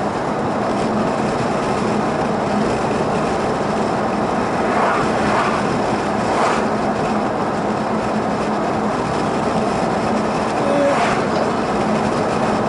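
Steady road noise inside a moving car's cabin: tyres on tarmac and the engine running at a constant cruising speed. Oncoming vehicles pass with brief whooshes, one about six seconds in.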